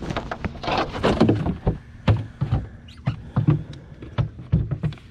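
Irregular knocks, clicks and thumps of a fish and fishing gear being handled inside a fishing kayak.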